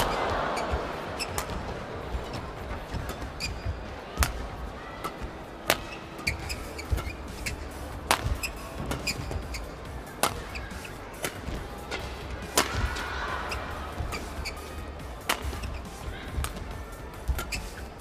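Badminton rally in an arena: rackets striking the shuttlecock with sharp cracks every second or two, shoes squeaking on the court mat, and a crowd murmuring that swells into cheering near the start and again about thirteen seconds in.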